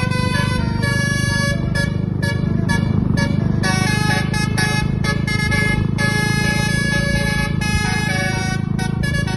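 A bus's basuri musical air horn playing a melody of quick notes and a few longer held ones, over a steady low rumble.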